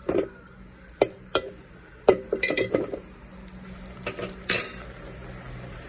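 A metal spoon clinking and scraping against a cooking pan as chicken liver is stirred, with sharp knocks at irregular intervals, some coming in quick bunches.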